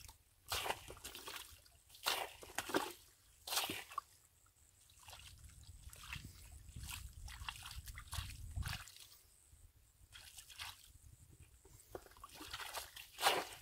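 Shallow muddy water sloshing and splashing in irregular bursts as a bucket is worked in it and hands dig in the mud. The splashes bunch up in the first few seconds and again near the end.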